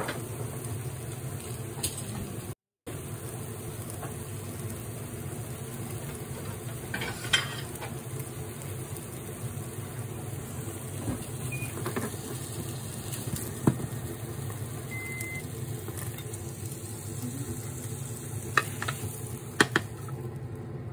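Egg omelette cooking gently in a rectangular tamagoyaki pan, a faint sizzle over a steady low hum, with a few light knocks. Near the end, the pan clacks against a plate as the omelette is tipped out.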